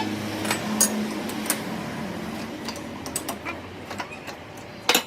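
A workshop machine running with a steady hum, with scattered light clicks and a sharp click near the end.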